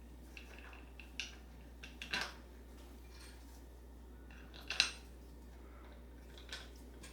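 A few light clicks and clinks of bolts and nuts being lined up and fitted through a 3D-printed plastic cell, scattered taps about a second apart at first, the sharpest just before five seconds in.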